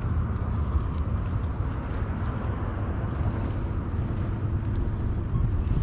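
Steady low engine rumble of a passing boat.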